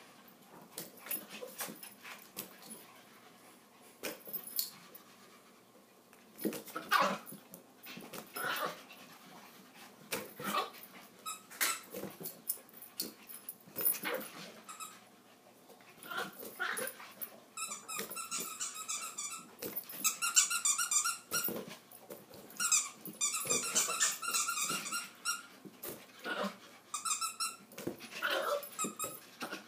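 Yorkshire terriers playing rough with a balloon: short dog cries and growls among many quick knocks and bumps from the balloon and their paws. Through much of the second half comes a run of rasping, rubbery squeaks, typical of teeth and claws scraping the balloon's skin.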